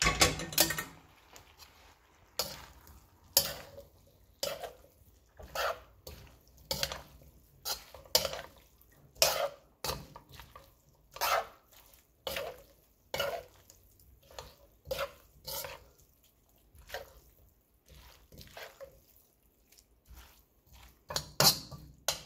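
Metal spatula scraping and knocking against a wok as noodles and vegetables are tossed together, about one stroke a second.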